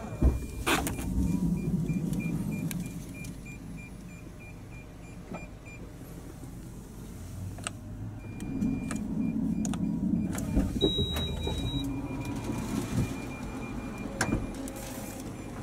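Suzuki Every Wagon's power sliding door running on its electric motor, twice: each run starts with a click and comes with a series of evenly spaced warning beeps while the door moves.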